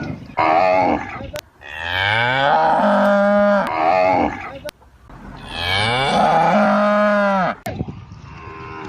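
A calf mooing: a short call, then two long drawn-out moos, each rising in pitch at the start and then held.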